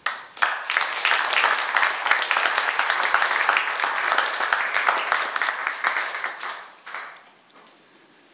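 Lecture audience applauding: a dense patter of many people clapping that starts suddenly, holds steady, and dies away over about a second near the end.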